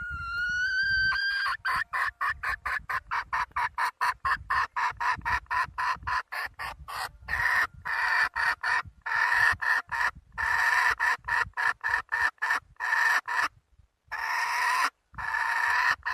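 Desi hen calling: a drawn-out rising call, then a fast run of short clucks at about four or five a second, then from about halfway a string of longer, louder squawking calls with short gaps between them.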